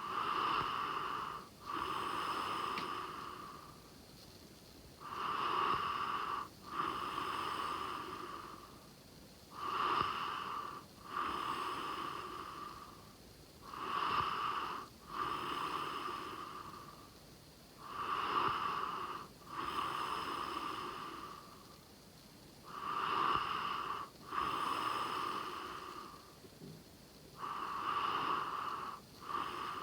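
A sleeping person snoring in a steady rhythm, about one breath every four and a half seconds. Each breath comes as a short snore, a brief break, then a longer one.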